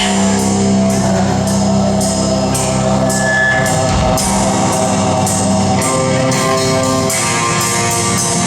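Live rock band playing, with guitar and drum kit; cymbals are struck about twice a second over sustained guitar tones.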